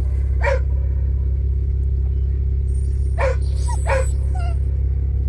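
A dog barks sharply three times, once about half a second in and twice around three to four seconds in, over the steady low rumble of a car engine running.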